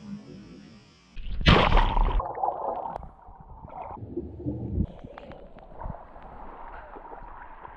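A loud rush of water about a second in, then muffled underwater gurgling and bubbling with scattered clicks, as heard from an action camera under the sea surface.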